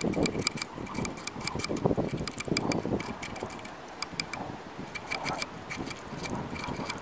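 Knife whittling a birch stick into a bow-drill spindle: irregular scraping strokes with sharp clicks as the shavings come off.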